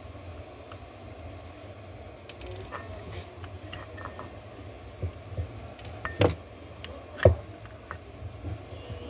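Plastic housing of a Hikvision dome IP camera being pried apart by hand with a screwdriver: scattered small clicks and scrapes, then two sharp knocks about six and seven seconds in, over a steady low hum.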